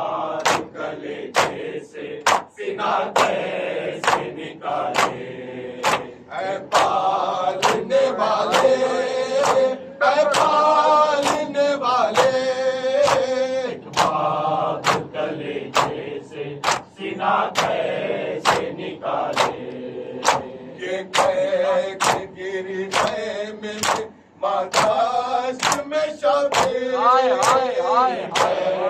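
Men's voices chanting a Muharram noha together, with matam (hands struck on the chest) beating out an even rhythm of a little over one stroke a second.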